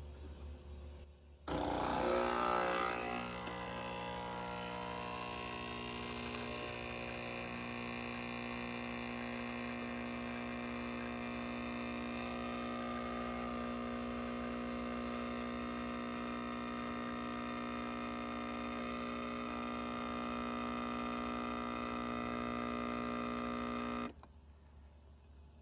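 A steady, droning hum of many held tones, starting suddenly about a second and a half in with a brief rush of noise and cutting off abruptly near the end.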